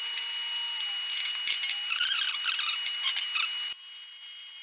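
Scratchy handling and rubbing of aluminium pieces being held in position. Near the end an AC TIG arc is struck on the aluminium for a tack weld: a thin, even, high buzz for about a second.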